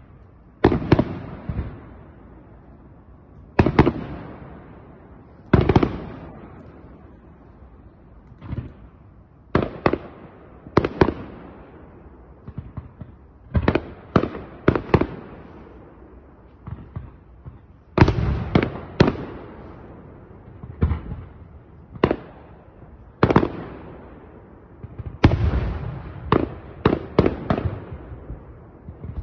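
Aerial fireworks bursting in a professional display: sharp reports at irregular intervals, sometimes one alone and sometimes in quick clusters of several, each trailing off in an echo.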